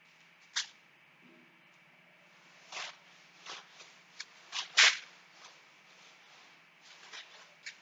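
A chalkboard being wiped with a cloth duster: short, irregular swipes, the loudest about five seconds in.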